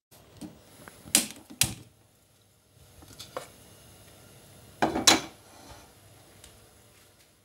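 Gas stove being lit: two sharp clicks of the knob and igniter about a second in, then a faint steady burner hiss. About five seconds in, a heavier metal clatter as a nonstick wok is set down on the burner grate.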